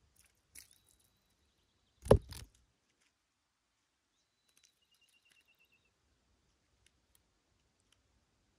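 A brief loud thump about two seconds in, a few quick strokes lasting half a second, heaviest in the deep lows. Faint high whistling bird calls around it, one a short rapid trill about five seconds in.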